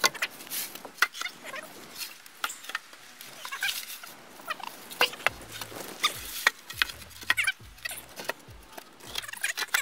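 Wooden log poles knocking and clacking against each other as they are laid side by side on the ground, with dull thumps from about five seconds in as they are set down.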